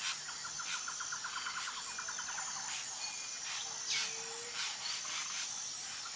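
Outdoor bird and insect chorus: a steady high insect drone under several birds calling. A rapid run of short repeated notes fills the first two and a half seconds, followed by scattered whistles and a short low whistled note about four seconds in.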